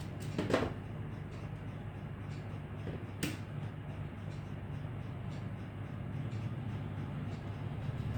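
A few brief clicks and knocks as the replacement power supply board is handled and fitted into the set-top box, over a steady low hum.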